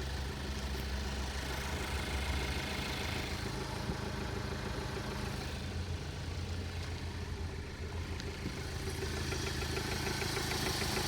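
Ford Focus SE engine idling steadily, with a fast regular ticking joining in near the end. The owner is worried by the noise and shaking at idle and suspects worn motor mounts.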